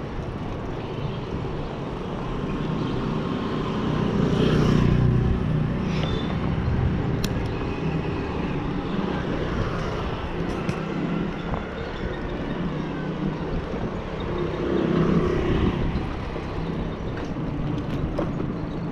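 Wind rumbling on the microphone and road noise from a bicycle ride in traffic, with motor vehicles swelling louder twice, around four and fifteen seconds in.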